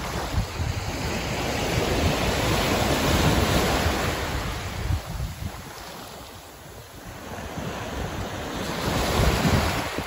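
Small surf breaking and washing up a sandy beach, the rush swelling a few seconds in, easing off and swelling again near the end. Wind rumbles on the microphone, mostly in the first half.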